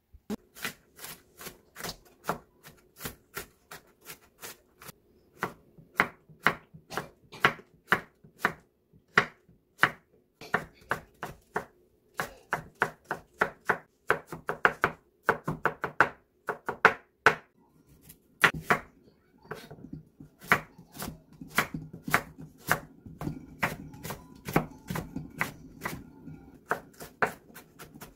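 A kitchen knife dicing vegetables finely on a wooden cutting board, zucchini and then carrot. It comes as uneven runs of sharp knocks, about two or three a second.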